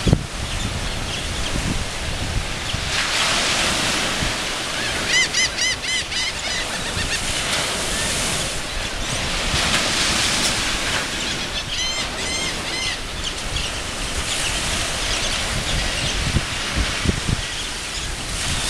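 Sea surf washing steadily, with a bird calling a quick run of short repeated notes about five seconds in and again about twelve seconds in.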